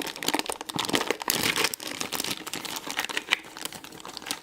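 Crinkly plastic packaging rustling and crackling with quick plastic clicks as toy sand molds are handled. It is busiest about a second and a half in and thins out toward the end.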